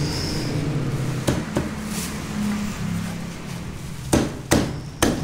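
A cleaver chopping onto a wooden chopping block: a pair of sharp chops about a second in, then three heavier chops in quick succession near the end.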